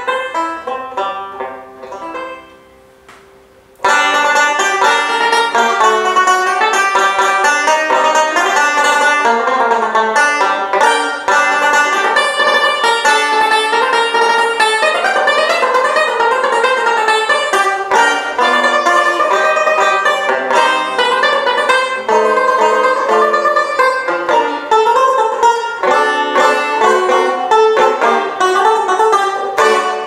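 OME Gold Moghul tenor banjo played solo: a ringing chord dies away over the first few seconds, then quickly picked notes and chords start again about four seconds in and carry on.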